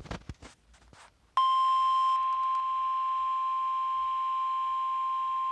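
NOAA Weather Radio warning alarm tone, a steady 1050 Hz tone sounded as the weekly test of the station's public warning system. It starts about a second and a half in, after a few short crackles.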